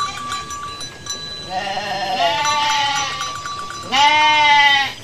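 Sheep bleating: overlapping, wavering bleats from about a second and a half in, then one loud bleat about four seconds in.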